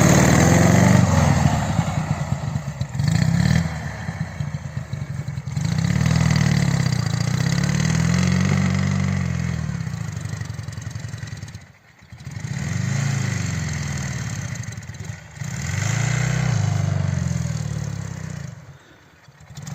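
Flat-twin Ural/Dnepr-type motorcycle engine revving under throttle in repeated surges, its note rising and falling several times, with two brief drops in power, the second near the end, as the bike struggles to shift into second gear.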